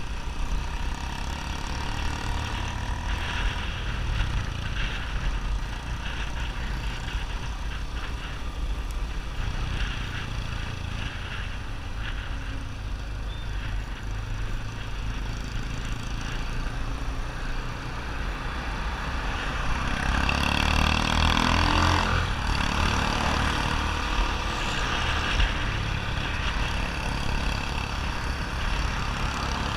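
Yamaha XTZ 250 Ténéré's single-cylinder engine running through a Roncar 2WAY SC401 aftermarket exhaust. The note gets louder and rises in pitch for a few seconds about two-thirds of the way through, then settles back.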